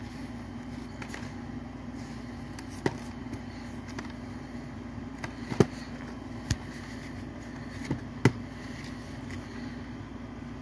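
A plastic Blu-ray case being slid out of its cardboard slipcover and handled, giving a handful of sharp clicks and taps, the loudest a little past the middle, over a steady low hum.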